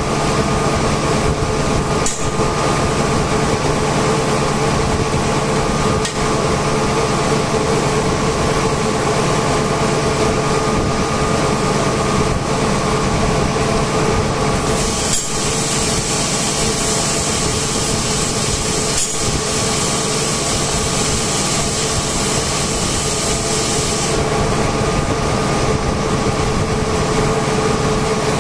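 Steady loud hum of industrial air compressors running, with a high hiss of air joining for several seconds past the middle. A few sharp metal clicks of hand tools stand out over it.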